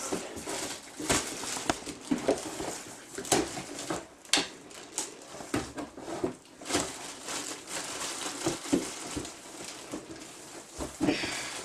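Cardboard packing box rustling, scraping and knocking as vacuum cleaner parts are lifted out of it by hand, in uneven bursts with sharp crackles.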